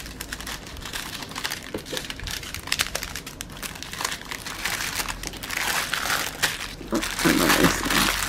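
Clear plastic baggies of diamond-painting drills crinkling and crackling as they are handled and folded, a little louder in the second half.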